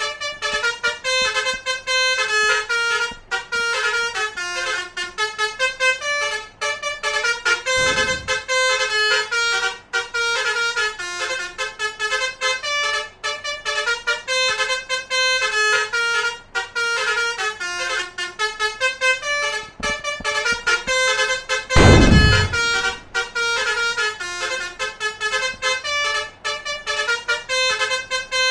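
Double-decker bus 'telolet' basuri horn, a multi-tone musical air horn, playing a continuous run of quick melodic notes. A short low rumble comes about eight seconds in and a louder one about twenty-two seconds in.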